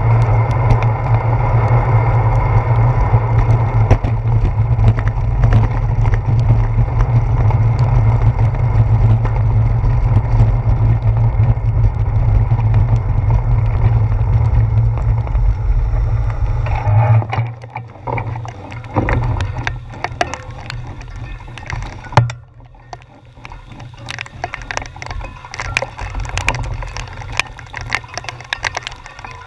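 Wind and road rumble on a handlebar-mounted GoPro as the bicycle rides over wet pavement in the rain, cutting out suddenly about halfway through. After that come quick, irregular ticks of raindrops hitting the camera housing, with one sharper knock a few seconds later.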